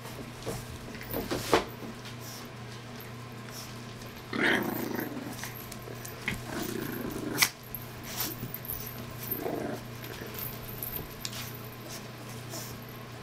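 French bulldog puppies growling in play while tussling over ribbon, in three short growls with a few light clicks between them, over a low steady hum.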